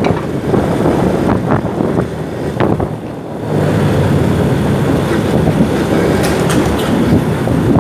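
Motorcycle riding through city traffic: the engine runs under a steady wash of road and traffic noise. About three and a half seconds in the engine note steadies and grows louder, and a few short rattles come near the end.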